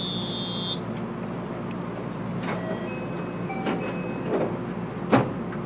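Door-closing warning tone of a JR West 223 series 5000 train for about the first second, then the sliding doors shut with a sharp clunk about five seconds in. A steady hum from the standing train runs underneath.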